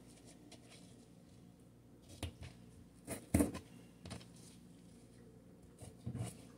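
A few short, scattered taps and clicks from trimming thin potato slices on a plastic cutting board, over quiet room tone.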